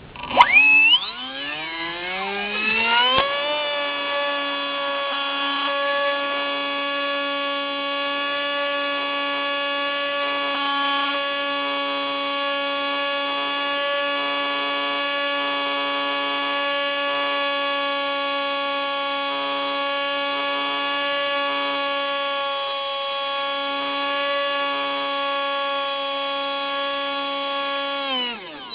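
Electric motor and propeller of a Hubsan Spy Hawk RC plane whining as it throttles up, its pitch rising over the first few seconds. It then holds one steady high hum under power and drops off near the end as the throttle is cut.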